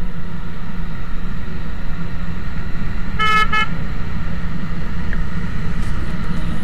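Steady low rumble of a motorcycle's engine and wind while riding, with a horn giving two short toots about three seconds in.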